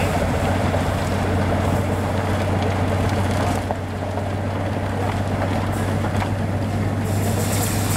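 Railway rotary snowplow running steadily as it cuts through deep drifted snow and blows it aside: a constant low engine drone under a broad rushing noise.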